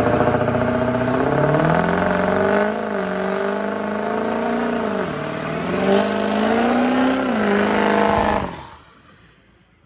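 A vehicle engine revving up and down several times, its pitch climbing, dipping about five seconds in, climbing again, then falling; the sound drops away sharply about eight and a half seconds in.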